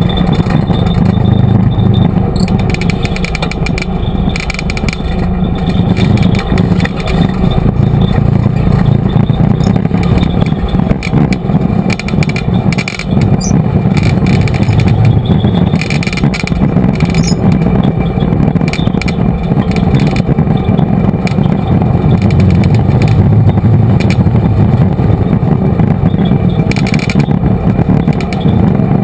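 Off-road vehicle driving along a rough dirt trail: steady engine and road noise, with occasional knocks and rattles.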